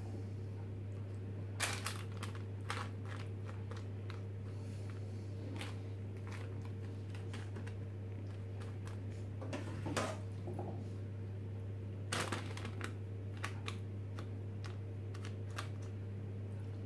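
Metal spoon tapping and scraping against a plastic dehydrator tray as cooked mince is spread over greaseproof paper: scattered light clicks and taps, a few louder ones, over a steady low hum.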